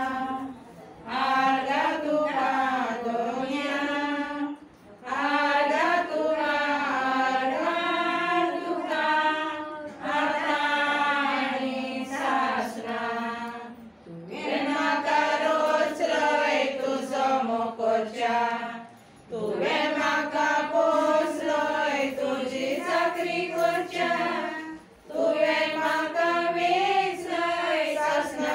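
A group of women singing a hymn together without accompaniment, in long phrases broken by short pauses for breath.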